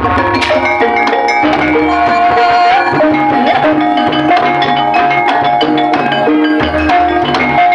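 Loud gamelan-style music played through a sound system: struck metal keyed instruments ringing steady notes, with hand-drum strokes and a heavy bass underneath.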